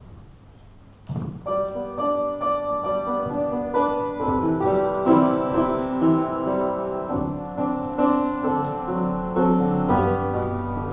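Upright piano beginning to play about a second in: a steady, slow run of chords and melody notes, the introduction before the violin comes in.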